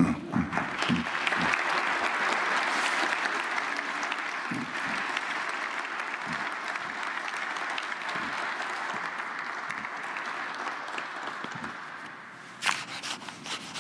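Audience applauding, a roomful of people clapping steadily and slowly dying away over about twelve seconds. A few sharp knocks follow near the end.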